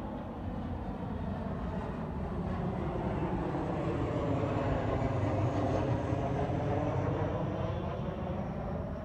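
A jet airplane passing overhead: a broad engine rumble that swells to its loudest about halfway through and then fades, with a faint high whine slowly falling in pitch.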